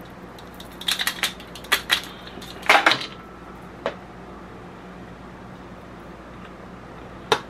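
Kitchen clatter from a knife and an aluminium foil pan being handled as sauced ribs are cut: a run of sharp clinks and crinkles in the first three seconds, then a lone click near the end, over a steady low hum.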